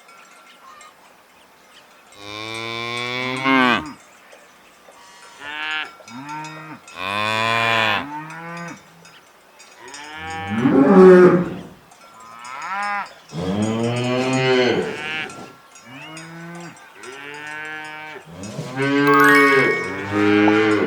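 Cows mooing over and over, about a dozen calls, some short and some long and drawn out.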